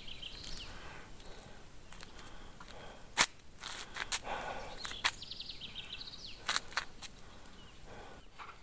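Small birds chirping, with quick trills of repeated high notes near the start and again around five to six seconds in. A few sharp clicks break in, the loudest about three seconds in.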